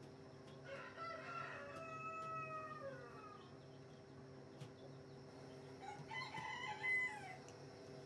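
Rooster crowing twice: a long crow about a second in that drops in pitch at the end, and a shorter, louder crow near the end. A steady low hum runs beneath.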